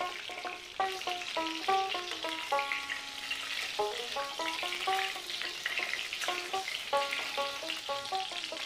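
Halved pointed gourds sizzling as they shallow-fry in mustard oil in a metal wok, turned over with a flat spatula about midway. Background music of short melodic notes plays over the frying.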